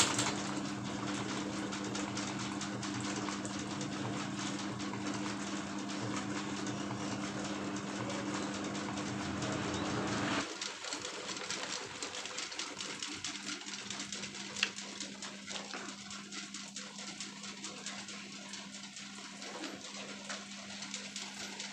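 Electric propeller fans running: a steady whir of blades and air with a motor hum. About halfway through, the deeper hum drops away and the whir gets quieter and more uneven.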